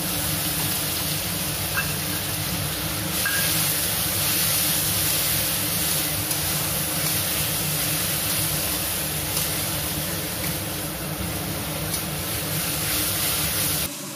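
Wet onion, green chili, ginger and garlic paste sizzling in hot oil in a steel kadhai as it is stirred with a metal spatula. A loud, steady hiss that grows brighter about three seconds in and cuts off suddenly near the end.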